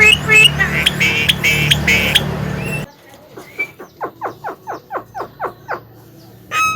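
Javan myna calling: high chattering calls over a low hum that cut off abruptly about three seconds in, then a quieter run of about a dozen short falling whistles, some four a second.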